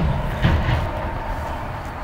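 Wooden hive frames knocking as they are shifted in the hive box: two short knocks about half a second apart, over a steady low rumble.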